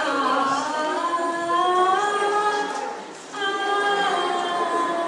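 Voices singing a song together with long held notes, with no instruments to be heard; a brief pause about three seconds in before the next phrase.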